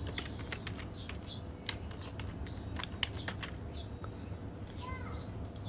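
Typing on a computer keyboard: a run of irregular key clicks as a phrase is typed, over a steady low hum.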